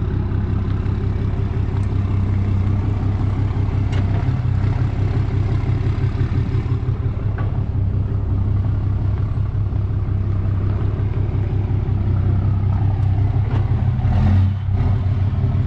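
Truck engine idling steadily, with a few light clicks and clanks and a brief rise in level about 14 seconds in.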